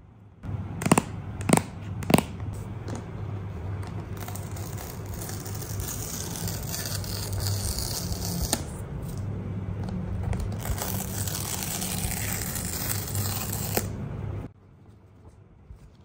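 Three sharp taps of fingers or nails on the cardboard box, then a long, steady ripping and rustle as the paper pull-tab strip is torn off the sealed iPad Air box. The rustle cuts off suddenly near the end.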